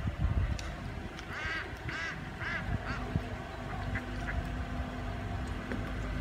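Ducks quacking, a quick run of four or five quacks about one to three seconds in. A low, steady hum comes in about halfway through and carries on.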